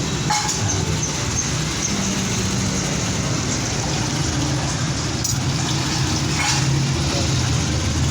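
Steady road traffic noise with a low, wavering engine hum and a few faint clicks.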